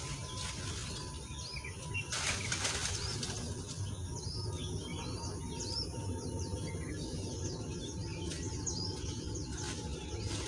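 Small birds chirping over and over, over a steady low rumble, with a few brief rustling swishes, the loudest about two seconds in.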